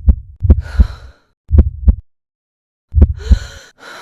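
Amplified heartbeat: three deep lub-dub double thumps at uneven intervals, with hissy breathing sounds over the first and last beats.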